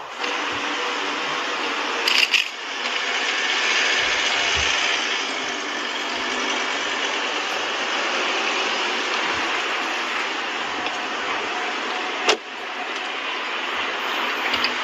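City street traffic noise: a steady hiss of passing cars, with a brief louder burst about two seconds in and a single sharp knock near the end.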